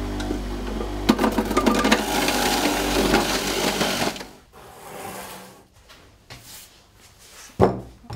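Electric centrifugal juicer running with a steady motor hum, crunching as beetroot and other vegetables are pushed down the feed chute and shredded, for about four seconds. Then it goes quieter, with a single sharp knock near the end as a laptop is set down on a table.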